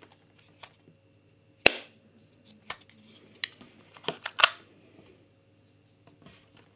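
Sharp plastic clicks and taps as a CMF Buds Pro 2 earbud charging case is handled: a single loud click a little under two seconds in, then several smaller clicks with a close pair at about four seconds.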